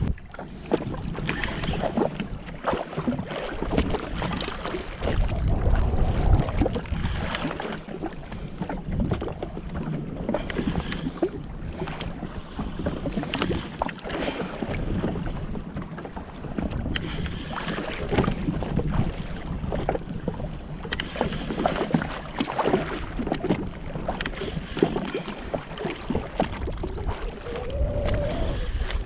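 Wind buffeting the action-camera microphone, with water splashing and sloshing around a jet ski at sea, in uneven gusts with no steady engine note.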